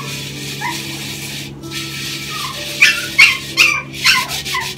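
A Pomeranian whimpering and then giving four short, sharp yips in the second half. Underneath, a cloth scrubs the metal of an antique brass-and-copper scale pan.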